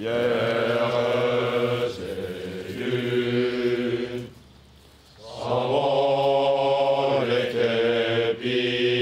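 A group of French Foreign Legion recruits singing in unison without accompaniment, with long held notes, in two phrases with a short break about four seconds in.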